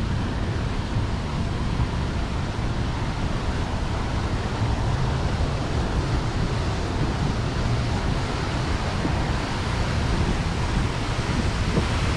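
Steady rushing and splashing of a plaza fountain, several water jets falling into a shallow pool.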